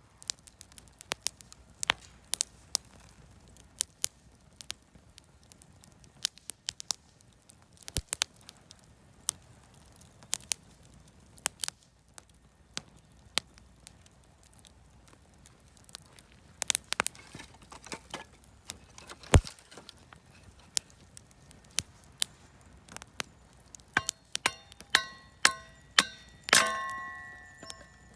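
Wood fire of scrap offcuts and firewood crackling, with sharp irregular pops. Near the end, a run of metallic strikes that ring on after each hit, the loudest with a long ringing decay.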